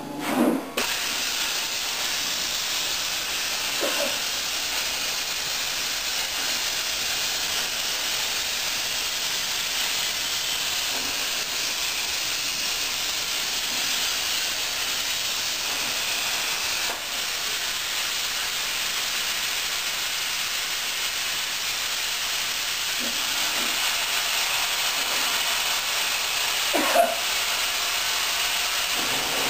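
Miller 375 Xtreme plasma cutter's torch cutting thin aluminum sheet on a CNC table: a steady hiss of the arc and compressed-air jet, with a short knock near the end.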